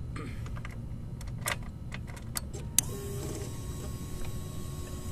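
Starter relay on a 2011 Suzuki GSX-R 600 clicking as the start button is pressed, with no starter motor turning: a few sharp clicks, the loudest a little under three seconds in, and a faint steady whine after it. The relay engages but does not fully close the circuit to the starter motor, which the owner puts down to corrosion under the relay's terminals.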